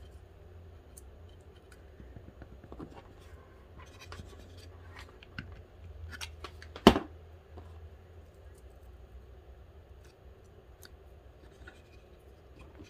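Small handling noises of crafting: light rustles, scrapes and taps as a small craft birdhouse, moss and pine cones are handled and a hot glue gun is used, over a faint low hum. One sharp knock about seven seconds in is the loudest sound.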